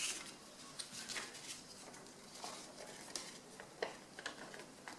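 A sheet of paper being folded and its crease pressed flat by hand: soft rustling and crinkling with scattered small clicks.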